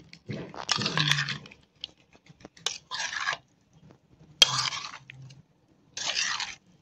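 A spoon stirring and turning boiled kachalu (taro) chunks through spices and tamarind pulp in a bowl, heard as four short bouts of wet scraping and mashing.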